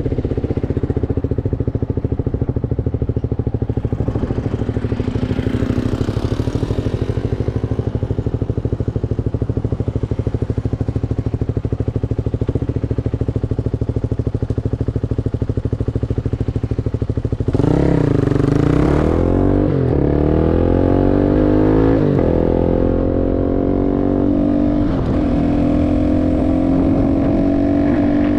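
CFMoto 250NK motorcycle with a full Akrapovič exhaust, its engine running at steady low revs for most of the stretch. About two-thirds of the way in it gets louder, the revs swing up and down, then climb steadily as the bike accelerates.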